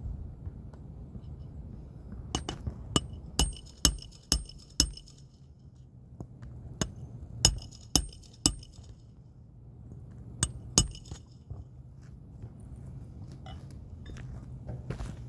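A series of sharp clinks on a hard object, each ringing briefly, in three clusters: about six strikes, then four, then two. A low steady hum runs underneath.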